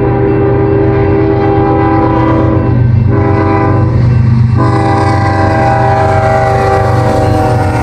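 Canadian National freight train's lead diesel locomotive sounding its multi-chime air horn in long blasts, broken twice by short gaps, over the low drone of its diesel engines as it comes up and passes. The horn's pitch drops slightly near the end as the locomotive goes by.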